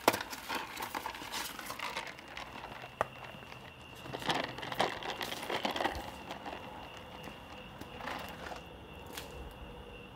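Thin plastic bag crinkling and rustling as a cup is rummaged out of it, in irregular crackly bursts over the first several seconds, then fading to softer, scattered handling noise.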